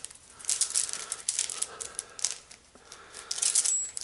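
Spiral metal armour of BX cable rattling and clinking in gloved hands as it is handled, in quick irregular clusters of small metallic clicks, loudest near the end.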